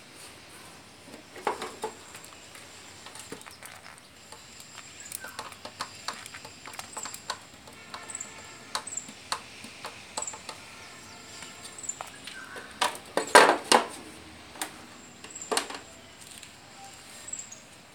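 Scattered clicks and knocks of a copper-wound toroidal transformer and its wire leads being handled and turned over on a concrete floor, loudest in a cluster about two-thirds of the way through. Faint high chirps recur throughout.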